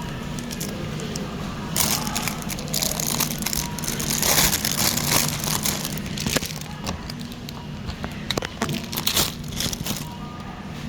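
Irregular crinkling and crackling with scattered clicks, loudest a few seconds in, over a steady low hum.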